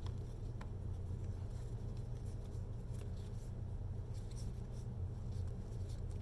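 A few faint clicks and light rustles of tarot cards being handled, over a steady low hum.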